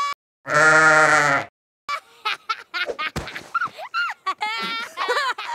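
A cartoon pony's laughter, cut up and edited. About half a second in comes one loud held vocal note lasting about a second. After a short break, stuttering, rapidly chopped fragments of laughing voice follow one after another.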